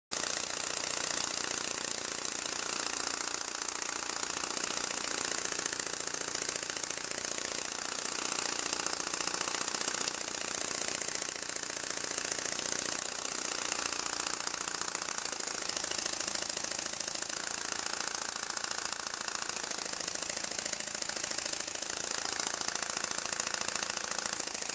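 Flapping-wing robotic hummingbird mechanism running: its small electric motor and wing linkage make a steady, rapid mechanical buzz as the wings beat about 14 to 15 times a second.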